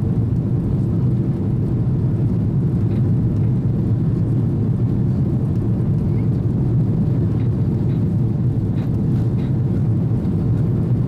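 Steady low rumble of an Airbus A330's engines and rushing air heard inside the passenger cabin as the airliner climbs after takeoff.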